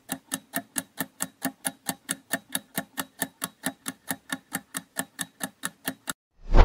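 Countdown-timer ticking sound effect: even, sharp ticks about four and a half a second while the timer runs down. Near the end the ticking stops and a short, louder swelling sound effect comes in.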